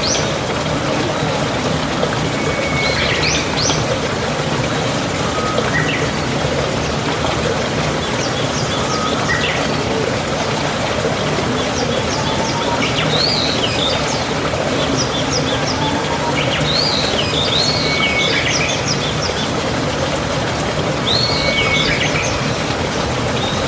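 Birds calling: short high chirps and rising-then-falling notes, repeating every second or few, over a steady background hiss.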